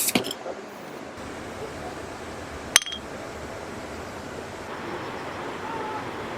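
A few sharp clinks, the loudest a single one about three seconds in, over a steady rushing background like flowing water.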